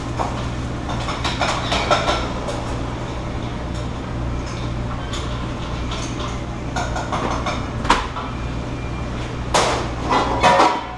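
Commercial kitchen at work: scattered knocks and clatter of pans, utensils and dishes, busiest near the end, over a steady low hum of ventilation.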